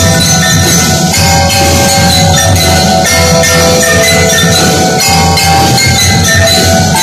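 A drum and lyre band playing loudly: bell lyres struck with mallets ring out a melody of overlapping notes over the drums.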